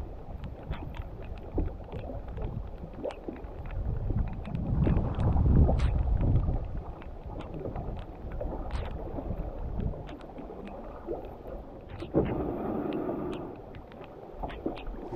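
Canoe being paddled: water splashing and lapping at the hull and paddle, with scattered small knocks and wind buffeting the microphone, strongest about four to six seconds in. About twelve seconds in, a sharper knock and a scrape as the canoe runs up onto a sandy shore.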